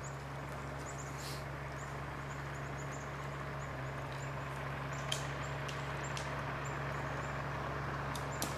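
Steady low drone of a motorboat engine out on the lake, slowly growing louder, with many faint high chirps over it. Two sharp clicks, about five seconds in and near the end.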